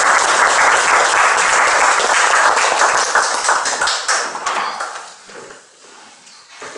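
Audience applauding, a dense patter of many hands clapping that dies away about four to five seconds in.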